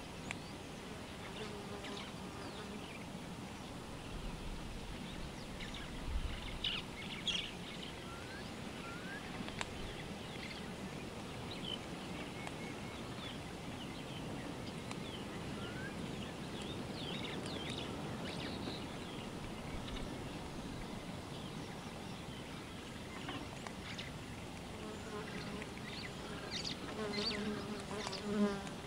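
A flying insect buzzing close by, briefly about a second in and again for the last few seconds, loudest just before the end, over a steady outdoor hiss with scattered short bird chirps.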